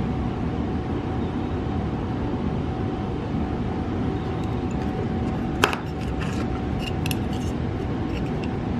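Steady background hum with a faint steady tone, and a few small metallic clicks a little past the middle, one sharper click followed by lighter ticks, as a tiny photo-etched brass part is handled and bent in a metal folding jig with a flat blade.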